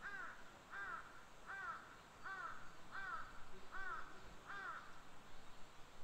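A crow cawing seven times in an even series, about three calls every two seconds, each call a short hoarse caw that rises and falls in pitch, over a faint steady hiss of outdoor ambience.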